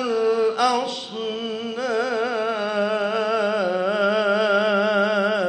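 A man reciting the Quran in the ornate, melodic mujawwad style, drawing out the last word of the verse, 'al-aṣnām', as a long wavering melisma that breaks off near the end.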